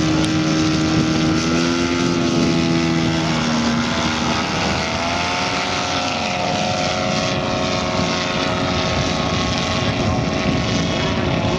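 A large radio-controlled model aircraft's petrol engine and propeller running. The engine is opened up for the take-off about five seconds in, its pitch rising and then holding steady as the model climbs away.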